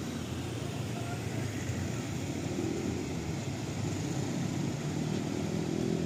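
Heavy truck engine running at low speed as the truck rolls closer, a steady low rumble that grows slightly louder near the end.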